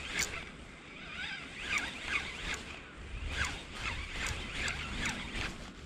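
Wind buffeting the microphone over water lapping at a concrete harbour breakwater, with a string of short, high-pitched squeaks several times a second.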